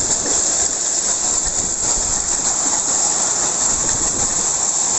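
Hailstorm: heavy rain and hailstones falling, a steady dense hiss with faint scattered ticks.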